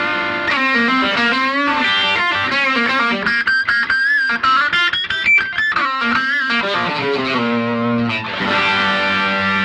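Electric guitar played through a BOSS SD-1 Super OverDrive pedal, giving a mildly overdriven tone: a held chord, then a single-note lead line with bends and vibrato and a quick run of notes in the middle, and a new chord struck and left ringing about eight seconds in.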